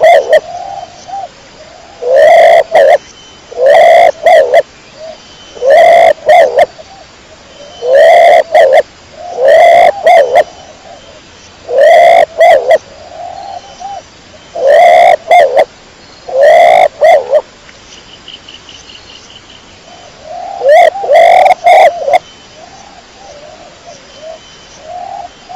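Domestic kecor pigeon cooing: short, loud coos repeated about every two seconds, with a pause of a few seconds about three-quarters of the way through.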